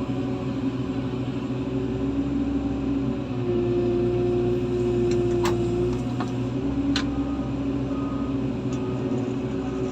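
Heavy diesel engines of the recovery equipment running steadily, their pitch rising a few seconds in and falling back as the throttle changes. Two short sharp clicks come a second and a half apart near the middle.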